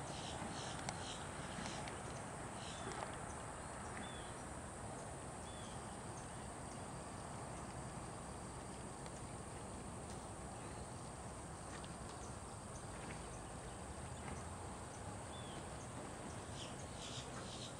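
Steady outdoor background hiss with a few faint, short high chirps now and then, and a fast, even, high-pitched pulsing near the start and again near the end.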